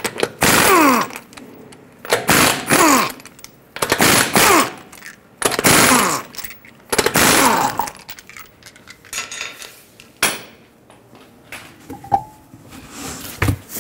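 Half-inch air impact wrench zipping off the wheel's five lug nuts in five short bursts, each winding down in pitch as the trigger is let go. A few lighter knocks and a sharp click follow.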